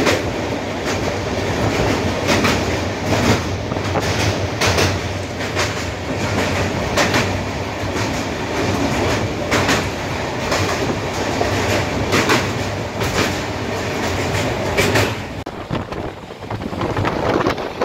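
Express passenger train running at speed, heard from on board: a steady rumble with the wheels clacking over rail joints about once a second. The noise dips briefly near the end, then picks up again.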